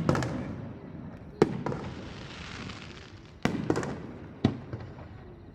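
Aerial firework shells bursting: about five sharp booms, one right at the start, one about a second and a half in, a quick pair around three and a half seconds and one more near four and a half seconds. Each boom trails off in a rumbling echo, and a soft hiss follows the second burst.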